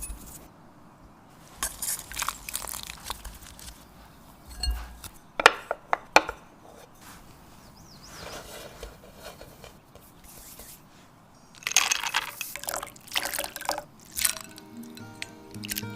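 Cake-making kitchen sounds: bursts of scraping and handling noise with utensils and containers, and two sharp taps about five and a half and six seconds in.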